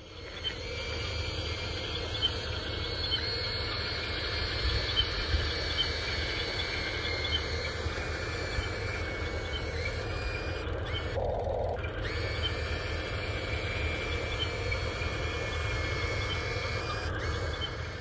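Outdoor riverside ambience: a low rumble of wind on the microphone and small birds chirping now and then, with a faint steady high whine throughout.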